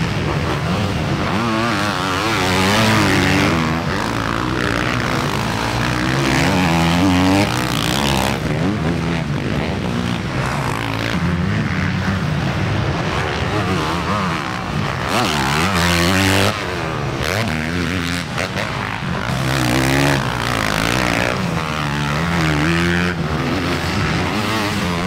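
Several motocross dirt bikes racing. Their engines rev up and drop back again and again as the riders shift and work the throttle through the track, with a few louder moments as bikes pass close.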